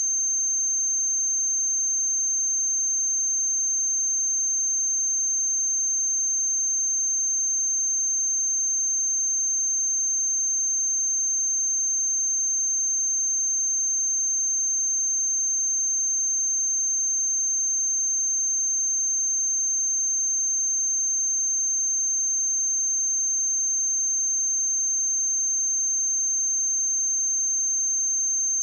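A steady, high-pitched 6315 Hz sine-wave test tone: one pure tone, held at an unchanging level.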